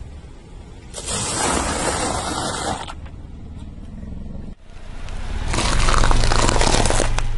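A car tyre crunching over a block of dry instant noodles for about two seconds. After a cut, a car rolls slowly forward on concrete: tyre noise grows louder over a low engine hum.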